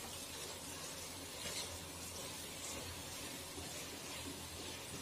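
Faint, steady sizzle of sliced onions, tomatoes and ground spices frying on a low flame in a non-stick pot, with a spatula stirring through them.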